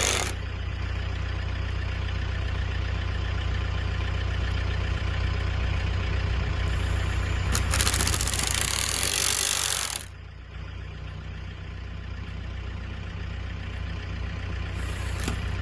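Farm tractor's diesel engine running steadily at idle, with a louder rushing noise for about two seconds past the middle, after which the overall sound drops quieter.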